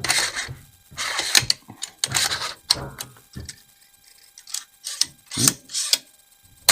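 A newly assembled AR-15 being function-checked by hand: a series of sharp metallic clacks and clicks as the charging handle and bolt carrier are cycled and the action and trigger are worked.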